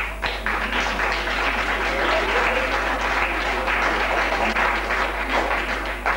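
Audience applauding: a dense patter of many hands clapping that comes in sharply, fills out within half a second, holds steady and thins out near the end.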